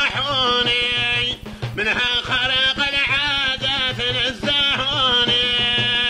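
A man singing an old Arabic qasida, unaccompanied by speech, in a drawn-out, ornamented melody with long held notes between winding phrases.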